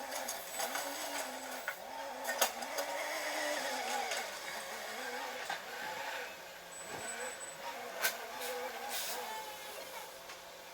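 Street traffic: a vehicle engine rising and falling in pitch, with a few sharp clicks.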